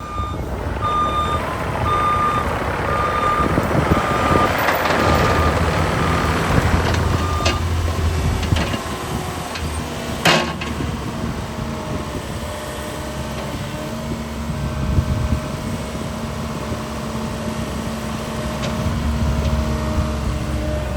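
Cat 306CR mini excavator's diesel engine running, with its travel alarm beeping steadily for the first seven seconds or so while the machine moves. A single sharp knock comes about ten seconds in.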